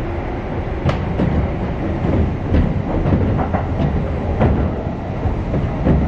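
Kintetsu Nara Line commuter train running, heard from inside the car: a steady low rumble with irregular sharp clacks of the wheels over rail joints.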